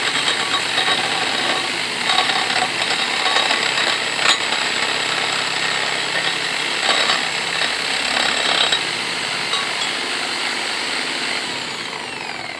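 Electric hand drill running steadily, spinning a wooden dowel against a cutting edge held to it, with the rough scraping of the wood being turned round and irregular louder scrapes. Near the end the drill winds down and fades.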